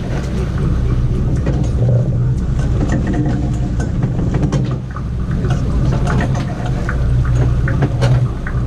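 Sportfishing boat's engine running at idle, a steady low drone, with scattered light clicks and knocks over it.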